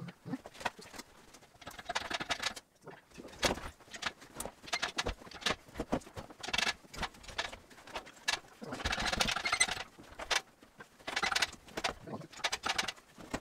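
Irregular metal clanks, clicks and scraping as a six-cylinder engine is worked free and lifted out of its engine bay on a shop crane and ratchet straps, with a longer grinding, rattling stretch about nine seconds in.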